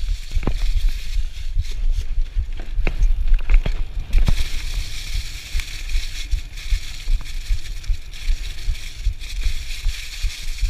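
Mountain bike riding over a dirt trail covered in dry fallen leaves: tyres crunching and rustling through the leaves with a steady low rumble, and several sharp knocks and rattles from the bike over bumps in the first four seconds.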